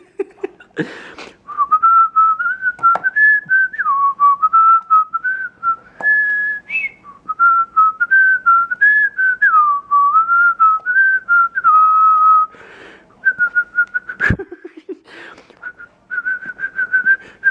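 A person whistling a wandering tune in short phrases with brief pauses, over knocks and rustles from an office chair being spun round with a cat on it. The sharpest knock comes about fourteen seconds in.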